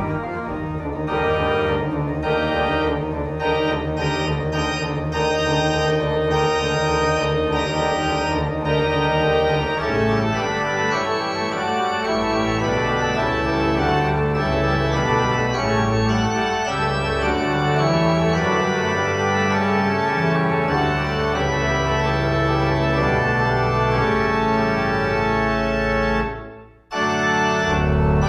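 Organ music playing slow, held chords. About ten seconds in the bass line moves to longer changing notes, and near the end the music cuts out for under a second before starting again.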